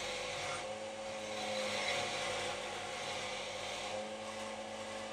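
A drill spinning a metal part against a running grindstone: a steady motor hum under a grinding hiss. The hum shifts about a second in and again near the end.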